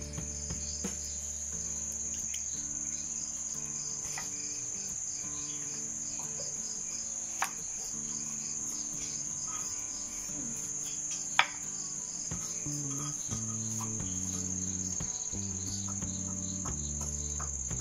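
An insect, cricket-like, trilling continuously in a high pitch over soft, low sustained background music notes. Two sharp knocks stand out, the louder one near two-thirds of the way through, fitting a knife striking the wooden cutting board.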